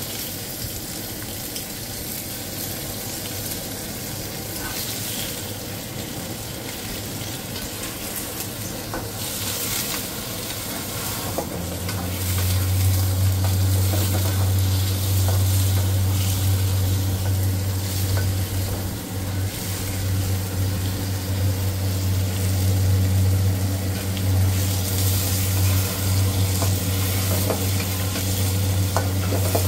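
Fried rice sizzling as it is stir-fried in a wok, with short scrapes and knocks of the spatula against the pan. A strong, steady low hum comes up about twelve seconds in and carries on under the sizzle.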